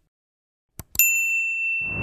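A quick pair of clicks, then a single bright bell-like ding about a second in that rings on steadily, with a whoosh swelling under it near the end.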